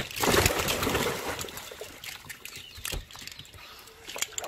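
Wet rustling and scattered knocks of a cast net and fish being handled on a boat, louder in the first second or so, with one sharp knock about three seconds in.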